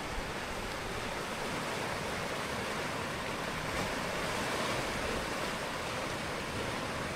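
Steady rushing of sea surf and wind along the shore.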